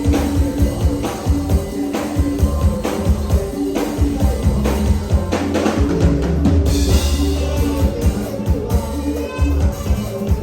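Lively Isan toei music with a steady drum and bass beat under held notes and a wavering lead melody.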